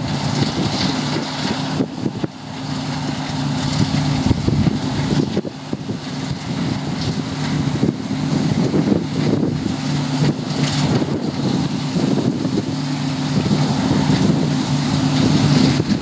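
New Holland CX8040 combine harvester running steadily under load while cutting and threshing wheat: a constant engine drone over the rush of the machinery, growing slightly louder as it comes closer.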